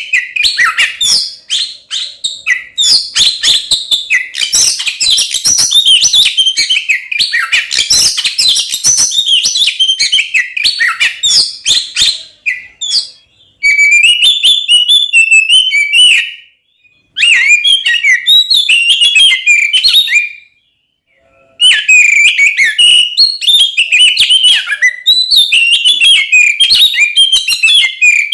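Oriental magpie-robin (kacer) singing loudly in a fast, unbroken jumble of varied whistles, chatters and clicks. This is the full, agitated fighting song that keepers use to provoke other kacer. The song stops for about a second twice in the second half, then resumes.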